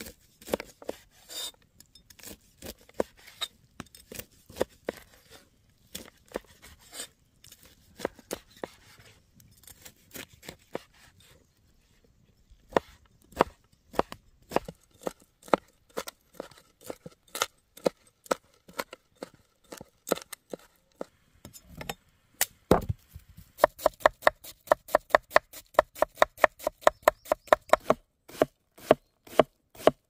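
Large broad-bladed knife cutting grilled chicken breast on a wooden cutting board: scattered slicing knocks at first, then a fast even run of chops, about five a second, near the end.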